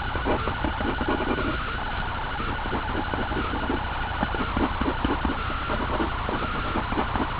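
A pen scratching on paper in many quick, short strokes over a steady electrical hum and hiss.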